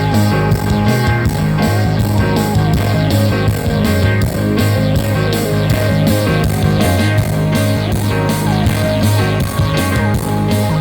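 Guitar-driven rock music with a heavy bass line and a steady beat, played through a Sony SAW SS-XB88V super woofer speaker.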